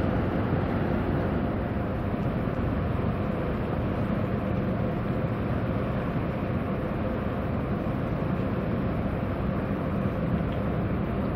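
Steady low rumble of ship engines, from a tugboat pushing against a container ship's stern, with a faint steady hum running through it.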